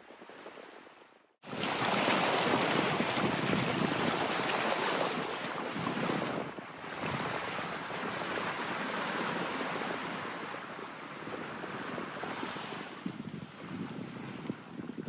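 Steady rush of wind and water aboard a sailing yacht under way, starting abruptly about a second and a half in.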